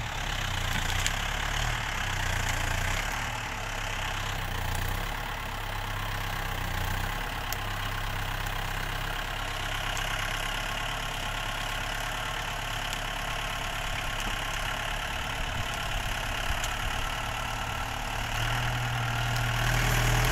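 Kubota M108S tractor's diesel engine running steadily at low revs, then revved up and louder for the last couple of seconds as it takes up the load of a cassava-laden trailer in the mud.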